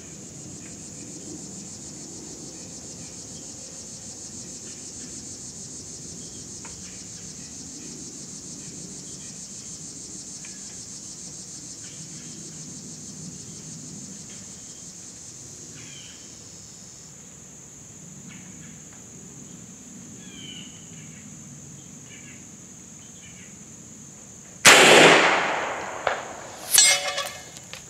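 A single shot from a BinTac MCAR 457 big-bore PCP air rifle near the end: one sharp report that dies away over about a second and a half, followed about two seconds later by a short burst of sharp clicks. Before it there is a steady high insect drone with occasional bird chirps.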